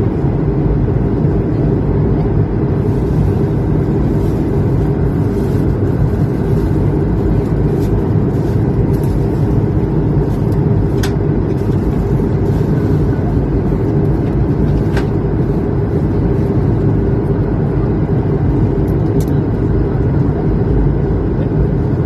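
Airliner cabin noise: a steady low rumble of engines and airflow, unchanging in level, with a couple of faint ticks.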